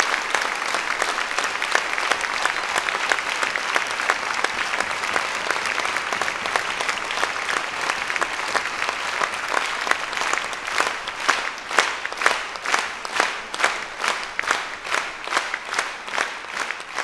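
Audience applauding in a large hall. About ten seconds in, the applause falls into unison rhythmic clapping, a little over two claps a second.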